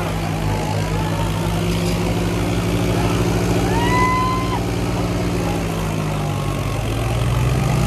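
Swaraj 963 FE tractor diesel engines running hard and steady, pulling under heavy load in a tug-of-war; the engine note sags slightly about six seconds in and picks back up. A short high tone sounds about four seconds in.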